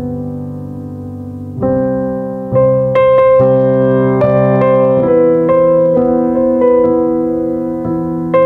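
Slow piano background music: held chords, with a melody of single notes joining about three seconds in.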